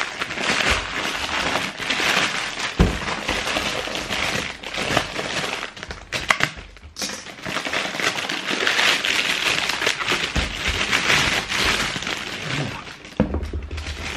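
Plastic parcel wrapping being cut and torn open by hand, crinkling and crackling, with a short lull about halfway through.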